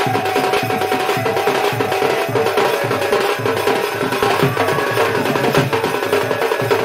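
Sambalpuri dhol, a double-headed barrel drum, beaten fast with a stick and the bare hand in a dense, driving rhythm, over a steady held tone from another instrument.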